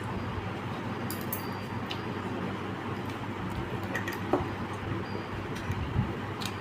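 Small clicks and light clinks of eating from a plate, a few scattered through, over a steady background hum.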